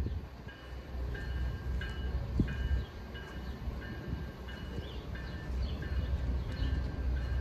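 Low rumble from a train still far down the line, mixed with wind, under a faint high chiming tone that repeats about once or twice a second, with a few short chirps near the end.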